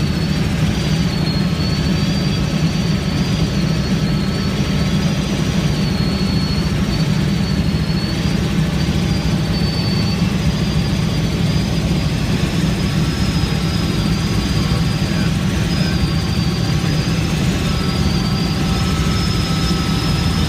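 Helicopter in flight: a loud, steady drone from the rotor and engine, with a high whine that wavers slightly in pitch.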